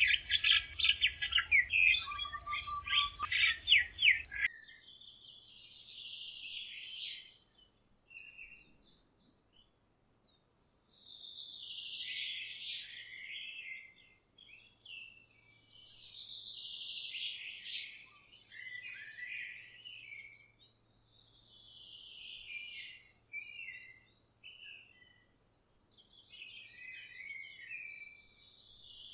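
Songbird song: a loud, fast run of repeated chirps that cuts off abruptly about four seconds in, then a bird singing separate phrases of about two seconds, each tumbling downward in pitch, every four to five seconds.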